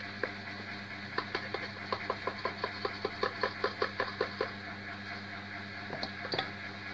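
A plastic coconut-milk sachet tapped against the rim of a stainless-steel pot to shake out the last of the milk, a quick run of light taps at about five a second, with a few more near the end, over a steady low hum.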